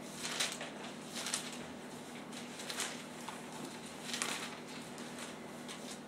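Thin Bible pages being turned at a lectern: four short paper rustles.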